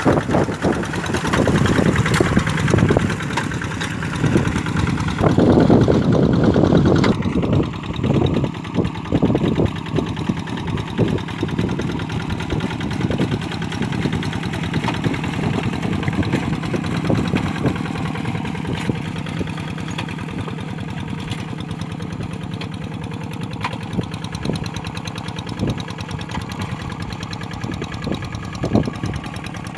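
Kubota RD85 single-cylinder diesel on a two-wheel hand tractor, chugging steadily as it drags through a flooded rice paddy. It is loud close by at first and grows fainter as the tractor pulls away.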